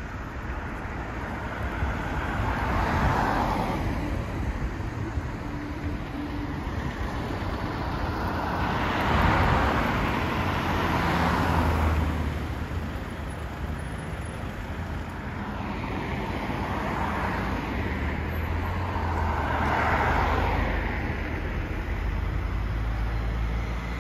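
Road traffic: cars and a box van drive past one after another, each pass swelling and fading as a whoosh of tyre noise, about five passes in all. A deeper engine rumble comes in around the middle and again near the end.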